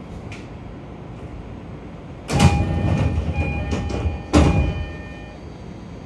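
E231 commuter train's sliding passenger doors working at a station stop. There are two loud thumps with a rush of air, about two seconds apart, and steady chime tones sound between them.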